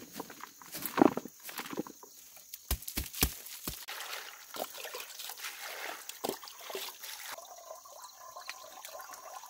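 Turmeric roots rustling as they tumble from a woven bamboo basket into a plastic basin, then four quick knocks. Water is then poured from a plastic dipper over the roots and sloshes as they are scrubbed by hand.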